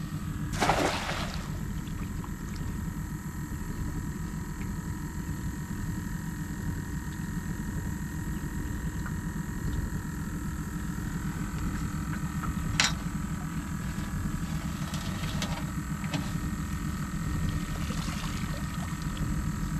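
A thrown cast net splashes onto the river about a second in, and near the end water pours and drips off the net as it is hauled up out of the water. A steady low motor hum runs underneath, with a single sharp click about two-thirds of the way through.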